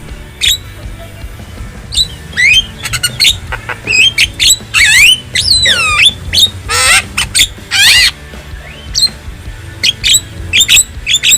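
Javan myna (jalak kebo) calling: a quick string of harsh squawks, chirps and sweeping whistles in bursts with short gaps, with a few longer downward-gliding calls in the middle.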